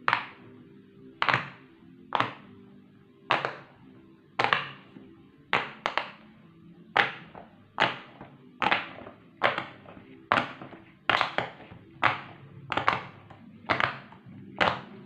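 Silicone pop-it fidget toy bubbles being pressed one after another, each giving a short pop, about one to two a second at an uneven pace. Faint background music runs underneath.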